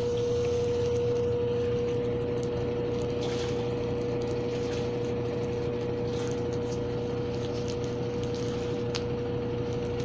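A Brastemp 12 kg BWK top-loading washing machine spinning its basket loaded with jeans in a spin cycle: a steady motor whine over a constant low hum.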